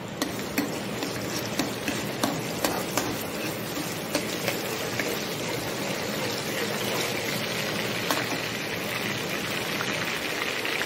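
Chopped ginger and green chillies sizzling in hot oil in a metal kadhai, a steady hiss, with a steel ladle stirring and clinking against the pan now and then.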